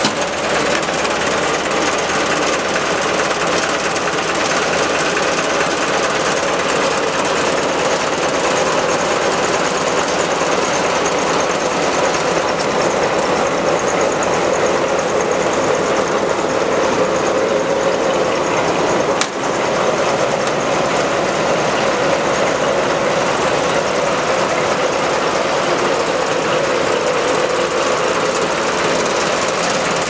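Road roller's diesel engine running steadily with a fast, rattling knock.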